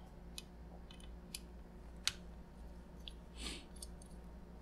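Faint, sparse clicks and taps of a screwdriver and small parts as a graphics card is taken apart, about half a dozen light ticks with the sharpest about two seconds in. A brief scrape about three and a half seconds in.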